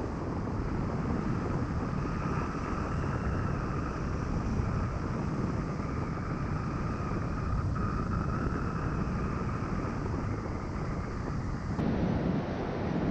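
Wind buffeting the microphone: a steady low rumbling rush, with a faint high whine through the middle. Near the end the sound changes abruptly to a brighter rush.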